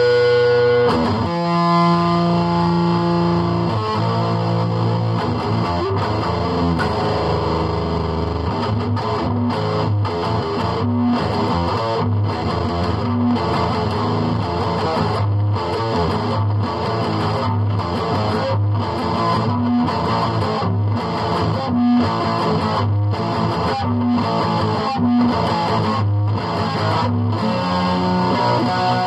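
Electric guitar played through distortion in a rock style. It starts with held notes and chords, then from about a third of the way in moves to a fast, evenly chugged rhythm.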